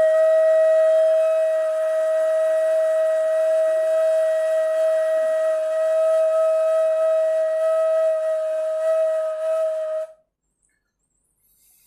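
Ney, the Turkish end-blown reed flute, holding one long, steady, breathy note for about ten seconds, then stopping.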